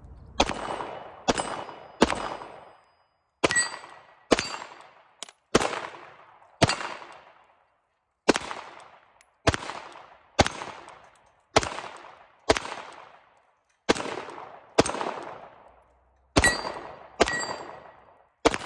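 Glock P80, a 9mm Gen 1-style Glock 17 pistol, fired about seventeen times at a steady pace, often in pairs about a second apart, each shot trailing a short echo. Some hits are followed by a brief ring from steel plate targets.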